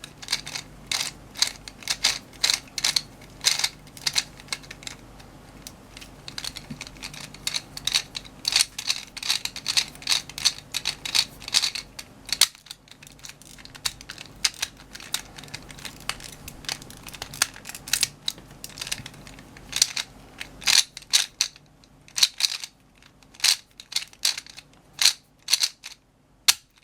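Gear Shift puzzle being turned by hand: rapid, irregular clicking and clacking of its plastic gears and pieces, with a short pause about halfway through.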